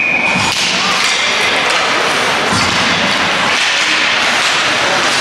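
Basketball gym noise: thumps of a basketball on the court and general court bustle, with voices in the background. A steady high buzzer tone cuts off just after the start.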